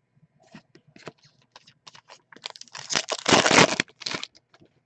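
Trading cards being handled: a run of small clicks and rustles, then a louder crinkling scrape of about a second and a half near the middle.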